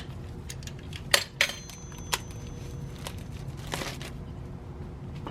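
New brake pads being fitted into a car's caliper bracket: a few sharp metal clicks, one leaving a thin high ring, and a short scraping slide a little after the middle.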